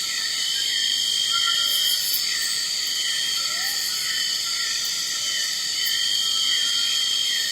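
Insect chorus: steady high-pitched trilling with a short chirp repeating about two or three times a second.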